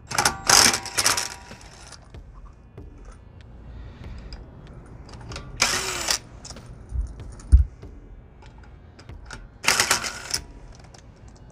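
Cordless impact wrench hammering lug nuts loose on a car wheel in three bursts, the first the longest at about two seconds and the others under a second, with a couple of dull knocks in between.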